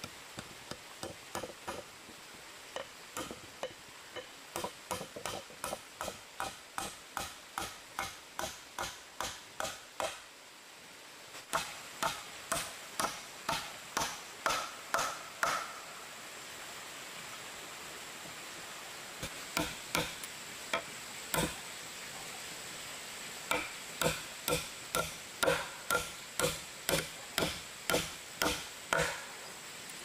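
Repeated chopping strikes, about two a second, in runs of several seconds with short pauses between them.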